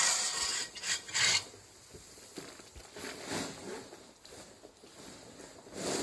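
Hay fork scraping across a gritty barn floor and loose dry hay rustling as it is scooped, in short noisy scrapes: loudest at the start, with two more about a second in, another near the end, and a softer rustle around three seconds as hay drops into the bag.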